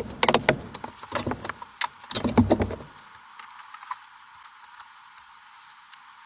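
Clattering knocks and rattles of hands-on construction work, dense for about three seconds, then only faint light ticks.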